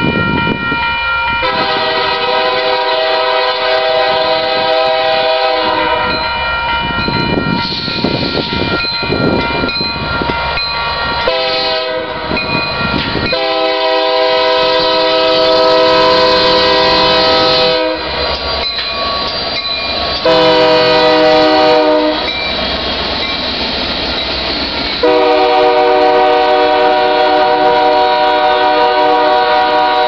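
Union Pacific freight locomotive's air horn sounding a series of long and short blasts for a grade crossing, the long blasts lasting several seconds each, over the rumble of the train rolling past; by the end the freight cars are passing on the rails.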